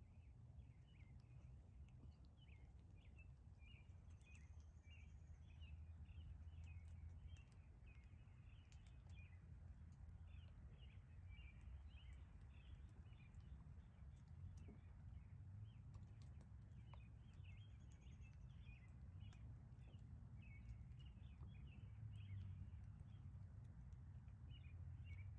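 Faint outdoor ambience: a dense, continuous chorus of many small, high chirps, with a low rumble underneath and a couple of faint high whistles.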